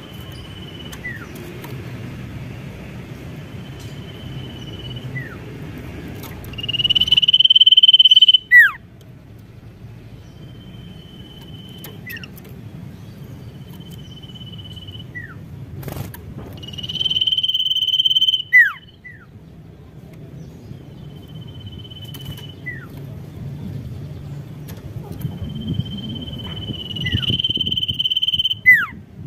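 Pied triller (sirtu) singing: three loud, long, even-pitched high calls about ten seconds apart, with quieter short notes and quick downward-sliding notes between them. A steady low rumble runs underneath.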